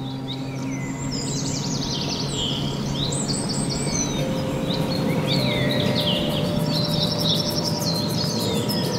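Songbirds chirping and trilling busily, many quick calls overlapping, over a steady rushing background noise with a faint hum.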